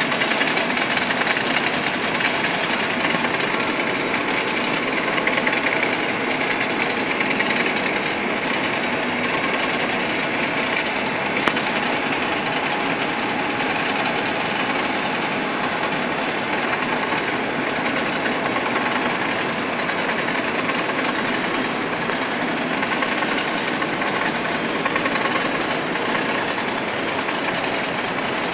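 Kalpvrux SLR 07 surface slitter rewinder running at speed, slitting and rewinding 28-micron LD film: a steady, even machine noise, with one small click about eleven seconds in.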